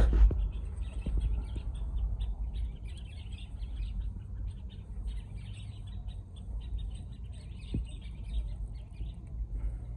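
Birds chirping over and over in short, scattered calls, over a steady low rumble, with a brief knock right at the start.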